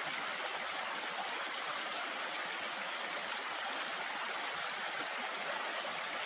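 Shallow stream running over stones: a steady rush of water.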